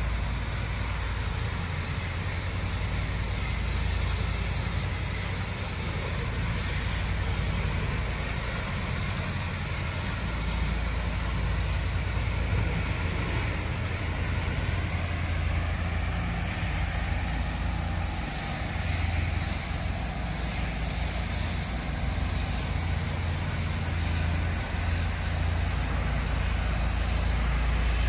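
Pressure washer running continuously: a steady low engine rumble with an even hiss of water spray over it.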